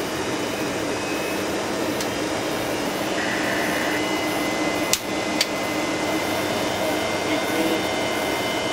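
Steady cockpit noise of the prototype Boeing 737-100 with its just-started left Pratt & Whitney JT8D turbofan running. A thin steady high whine comes in about three seconds in, and two sharp clicks half a second apart sound about five seconds in.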